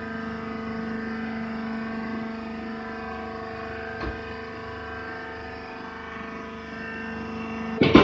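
Hydraulic press baler's power unit running with a steady, unchanging hum, a small click of baling wire about halfway through, and a sharp knock at the very end.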